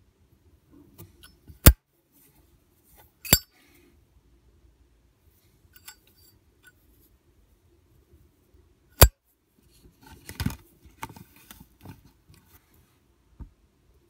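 Zippo Armor lighter's hinged chrome lid snapping, with three sharp metallic clicks about a second and a half, three seconds and nine seconds in. The middle click rings briefly. Softer knocks and rustling follow as the lighter is handled and set into its cardboard box.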